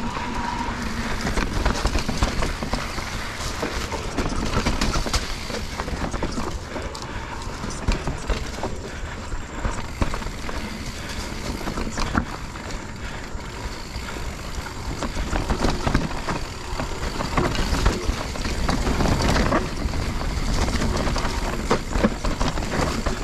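Mountain bike riding over a rough trail: steady tyre and riding noise with frequent irregular knocks and rattles from the bike going over bumps.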